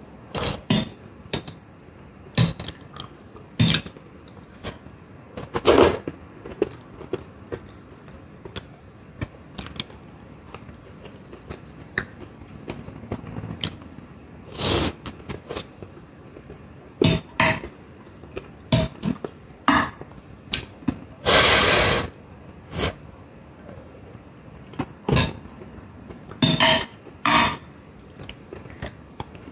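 Close-up eating sounds: a fork clicking and scraping on a ceramic plate, and chewing and mouth sounds of a mouthful of steamed vegetables. Short clicks come every second or two, with a few noisier mouth sounds, the longest and loudest lasting under a second a little past two-thirds of the way in.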